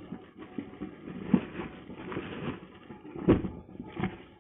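Shoes and cardboard shoeboxes being handled: rustling with a few knocks and taps, two of them sharp.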